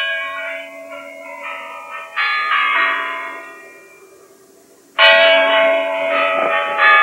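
Large bells ringing in a slow sequence of separate strikes, each left to ring on and fade. The loudest strikes come about five seconds in and again near the end.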